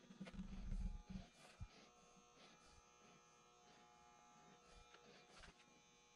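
Soft low thumps about half a second to a second in as hands handle the foam blank on the lathe, over a faint steady electrical whine.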